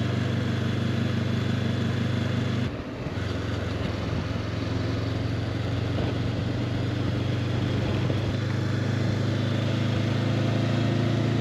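Honda CB500X's parallel-twin engine running steadily while riding, with wind rush over it. The engine note breaks off briefly about three seconds in, then carries on.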